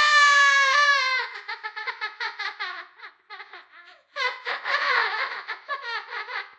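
A child laughing hard. It opens with a held high-pitched note, breaks into a quick run of laughing bursts that fades out, then starts a second loud bout of laughter about four seconds in.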